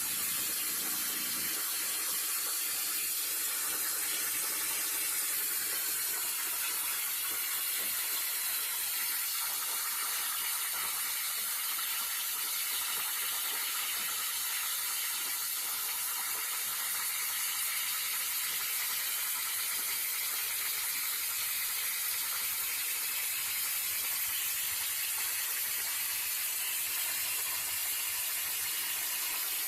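CNC plasma cutter torch cutting metal: a steady, unbroken hiss from the plasma arc and its compressed-air jet.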